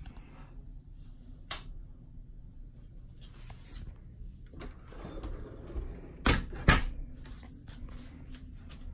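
Two sharp knocks close together about six seconds in, over a steady low hum and faint rustling, with a lighter click earlier.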